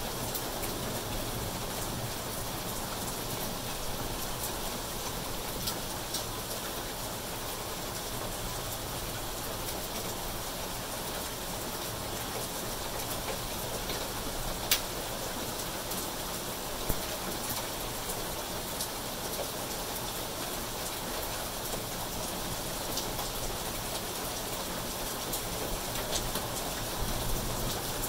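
Steady rain falling on garden foliage and a concrete walkway, an even hiss with two sharp ticks about halfway through.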